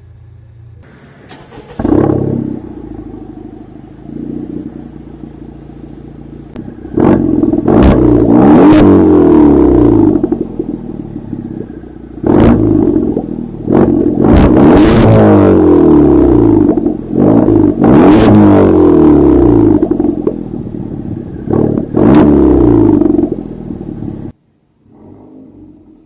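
Honda Civic Type R FK8's turbocharged 2.0-litre four-cylinder engine revved about six times through its exhaust, each rev rising sharply and falling back toward idle. The sound cuts off suddenly near the end.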